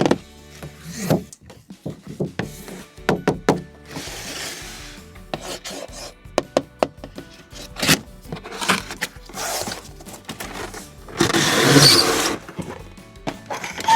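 Background music with a series of sharp clicks and knocks and a couple of rasping, rubbing noises, the longest and loudest about eleven seconds in.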